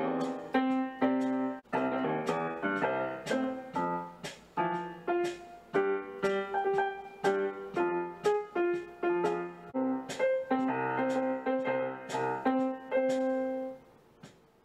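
Intro music: a piano-like keyboard melody of short, quick notes, which fades out just before the end.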